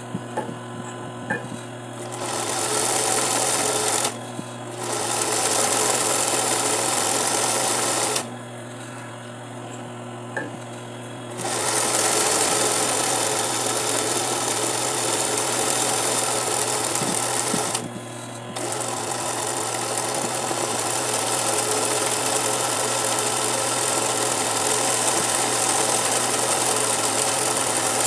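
Industrial 20U zig-zag sewing machine stitching appliqué, starting and stopping several times. The longest continuous run of stitching begins about a third of the way in. A steady low hum carries on through the pauses.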